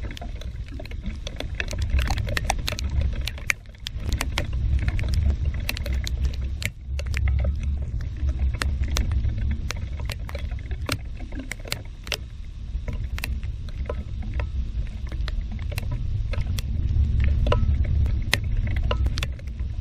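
Rain hitting the window the storm is filmed through: many irregular sharp taps of drops against the glass, over a steady low rumble of wind buffeting.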